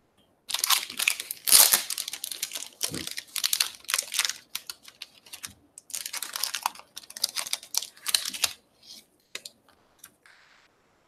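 Clear plastic crinkling and rustling in irregular bursts as hands handle trading cards on a table, stopping about eight and a half seconds in, with a few faint ticks after.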